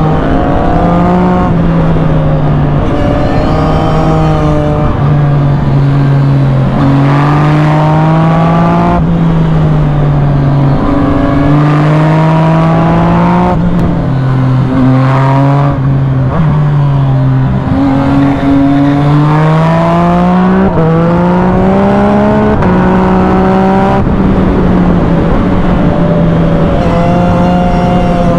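Yamaha MT-09 SP's three-cylinder engine through an Arrow full-system exhaust, run hard, its note repeatedly rising with throttle and dropping at gear changes and on deceleration.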